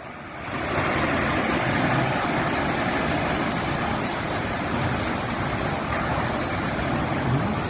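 Tornado winds blowing hard: a steady rushing noise that swells up about half a second in and holds.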